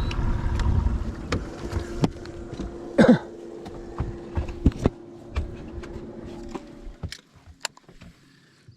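Boat motor running with a low rumble and a steady hum, then shutting off about six and a half seconds in, with knocks and clicks of gear being handled in the boat and a brief falling squeal about three seconds in.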